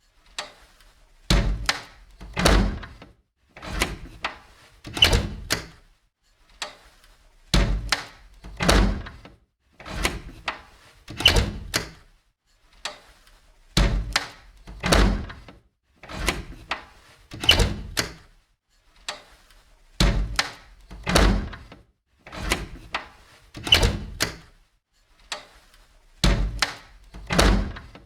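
Old door opened and closed over and over, about five times, each cycle a run of latch clicks and knocks ending in a solid thud as it shuts.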